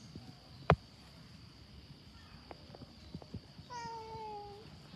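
A cat meows once, a single slightly falling call just under a second long, about three-quarters of the way in. A sharp click about a second in is the loudest sound, over a steady high-pitched whine.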